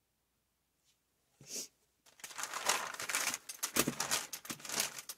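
A large brayer rolled over a sheet of crumpled scrap paper, the paper crinkling and crackling as black paint is wiped off the roller. A brief rustle about a second and a half in, then steady crinkling from about two seconds in.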